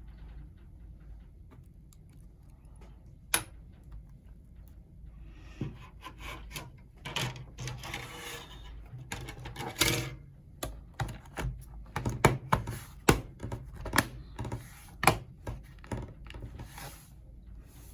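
Irregular clicks, taps and short scrapes of hands working on a Chromebook's plastic case and internal parts, sparse at first and getting busier about five seconds in.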